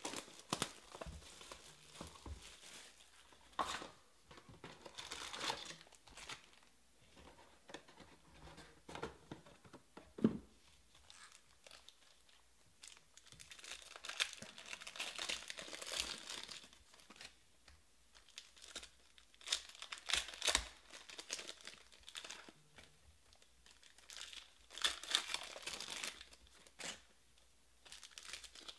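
Foil wrappers of Panini Prizm baseball card packs being torn open and crinkled by hand, in irregular bursts of crackling with short pauses between.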